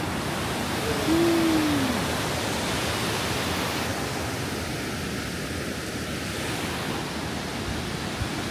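Steady rushing noise spread evenly across the range, with a short falling tone about a second in that is the loudest moment.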